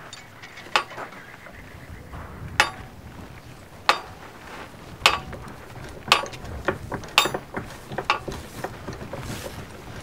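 Blacksmith's hammer striking metal at a forge: six sharp, ringing metallic clanks one to two seconds apart, followed by a run of lighter clinks.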